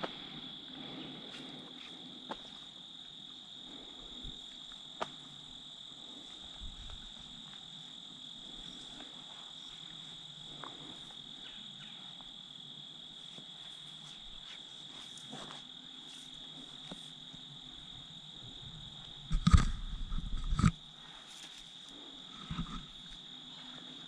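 Steady high-pitched chirring of crickets, with a few faint clicks. About three quarters of the way through comes a louder rustle lasting about a second, then a smaller one shortly after.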